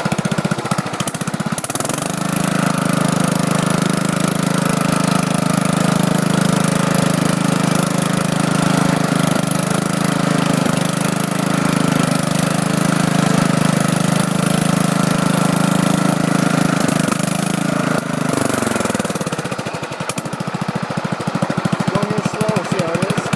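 Riding lawn tractor's engine: a slow, pulsing run at first, then it speeds up about two seconds in and runs steadily at high revs. Near the end its pitch falls away and it drops back to a slower pulsing run.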